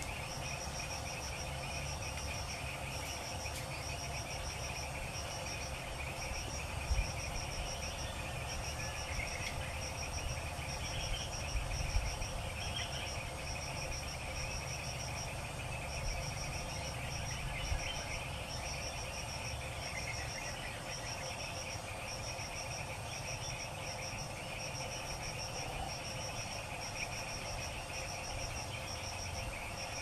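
Forest chorus: a high, rapid pulsing chirp repeating in long runs with short breaks, over a steady buzz of calling insects and a low rumble, with a few faint knocks.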